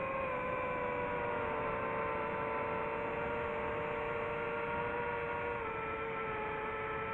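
FPV quadcopter's electric motors whining steadily at cruising throttle, the pitch settling a little lower right at the start and dropping slightly again about five and a half seconds in.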